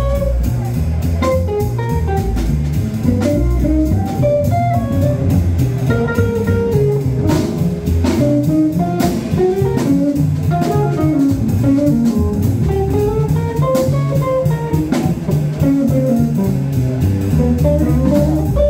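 A live jazz trio: an electric guitar plays a single-note melodic line over an upright double bass and a drum kit with frequent cymbal hits.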